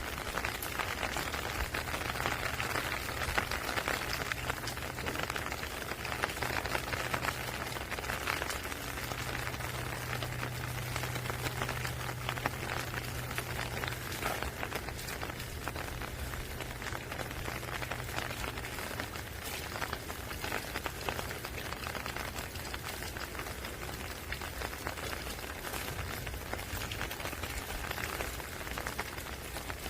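Steady rain falling, a dense even patter of drops with no pauses. A faint low hum sits underneath and fades out about two-thirds of the way through.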